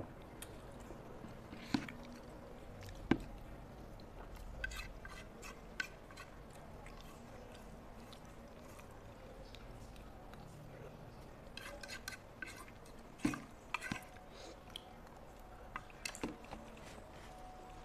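Quiet eating sounds: a metal fork clinking and scraping on a ceramic plate as the last of the pasta is gathered up, with chewing in between. The clinks come singly at first, then in short clusters.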